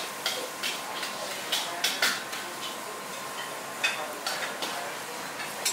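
Metal ladle stirring noodles in a steel wok over a gas burner: about a dozen irregular clanks and scrapes of metal on metal over a steady hiss of frying.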